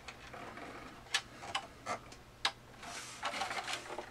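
Hands handling the plastic housing of an animated ski slope model: about four sharp plastic clicks and taps, then a brief rubbing rustle about three seconds in as the unit is turned over.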